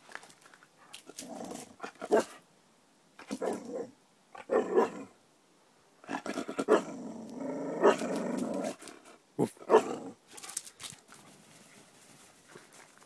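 Dog growling in excited play, in a string of short bursts and one longer growl of nearly three seconds about six seconds in.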